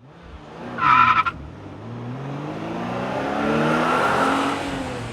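A short tire squeal about a second in, then a car engine revving up and swelling, its pitch rising and then sagging as it fades, like a car driving past.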